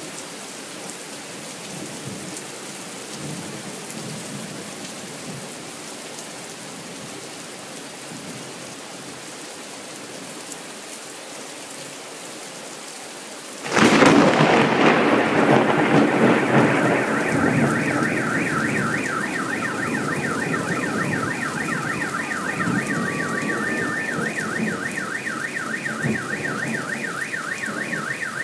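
Rain falling steadily, then about halfway through a sudden loud thunderclap that rumbles on for several seconds. A couple of seconds after the clap a car alarm starts up, a fast warbling tone that keeps going over the rain.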